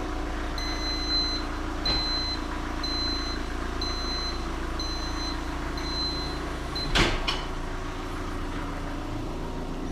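Vehicle lift's warning beeper sounding about once a second, seven beeps in all, as the car is lowered, with a short clack about seven seconds in as the beeping stops. Underneath, a steady hum from the Astra's 1.7 CDTI diesel engine idling.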